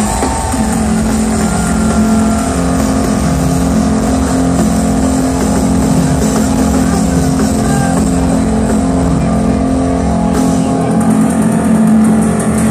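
A live band playing loud through a club PA, heard from the crowd: sustained low synth and bass tones shifting in pitch over steady drumming, with the deepest bass dropping away about ten seconds in.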